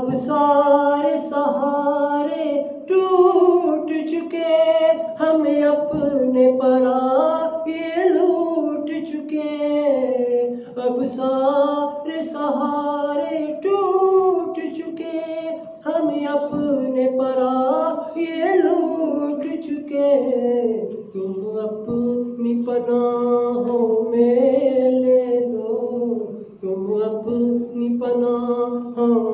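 A man singing a munajat, a devotional supplication, solo and without instruments, in long melodic phrases that rise and fall, with short breaks for breath.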